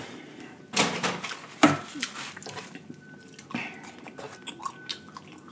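Close-miked handling of food at the table: two sharp clicks, then smaller crinkles and taps as French fries are picked out of a paper fry carton.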